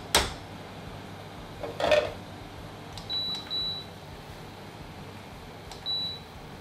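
Touch controls of a portable electric hob beeping as its power is turned down: two short beeps about three seconds in and another near the end. Before them come a couple of sharp knocks and a clatter about two seconds in, a spatula being set down.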